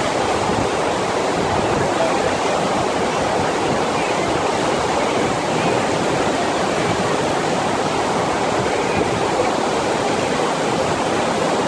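Steady, even rush of water from a FlowRider sheet-wave machine, water pumped in a thin sheet up its padded ride surface.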